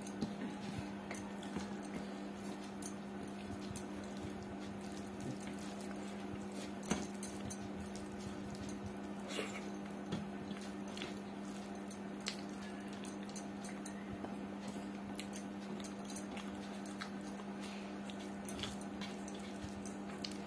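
Eating by hand from a steel plate: scattered soft clicks and taps of fingers on the metal plate and mouth sounds of chewing, over a steady low hum.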